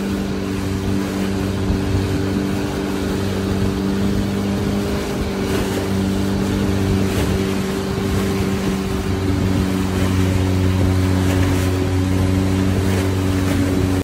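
Boat engine running at a steady speed with a constant hum, over the rush of water along the wooden hull and wind.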